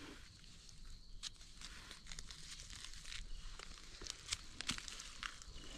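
Faint rustling of dry leaf litter and gloved hands, with scattered light clicks, as a wild mushroom is cut from the forest floor with a small blade.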